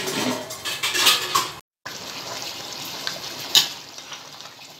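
Steel lid clattering as it is set on a steel cooking pot, with several metallic clicks. Then rice and stock bubbling at the boil in the pot, a steel slotted spoon stirring and one sharp clink of the spoon against the pot about three and a half seconds in.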